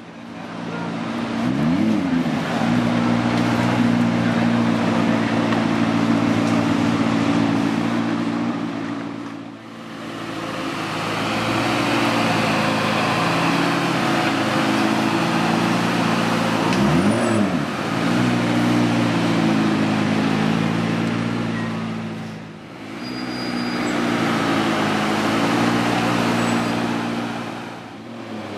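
McLaren P1's twin-turbo V8 idling steadily, blipped twice, each time a quick rise and fall in revs.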